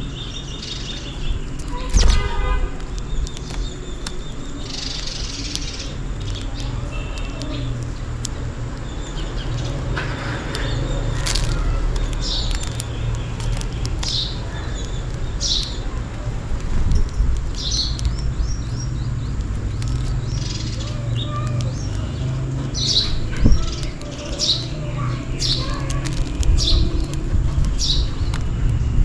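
House sparrows chirping: short, bright chirps repeated again and again, busiest in the second half, over a steady low background rumble, with a few sharp knocks.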